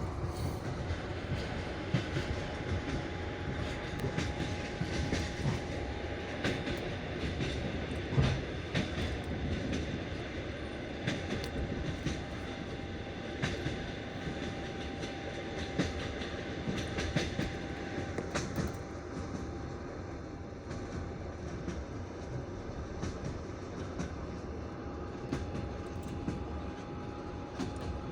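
Passenger train running over jointed rail laid on wooden sleepers, heard from aboard: a continuous rumble with the wheels clicking over the rail joints.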